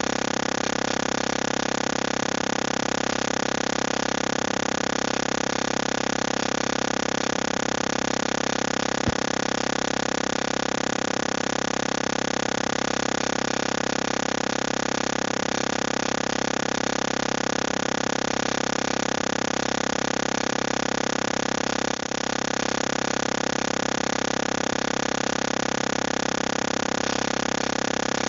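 Steady electronic noise, an unchanging hiss with several fixed tones layered in it, from an audio fault on the live call's stream, which the host takes for an audio problem. There is a single click about a third of the way in and a brief dip in level about three quarters of the way through.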